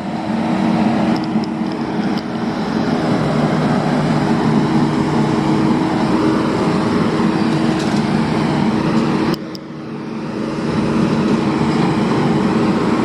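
Heavy construction machine's engine running steadily, dropping sharply about nine seconds in and then building back up.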